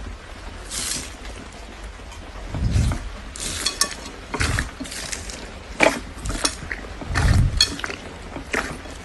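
Hands kneading and squeezing slime packed with foam beads: irregular crackling clicks and pops from the beads, with a couple of duller squishes.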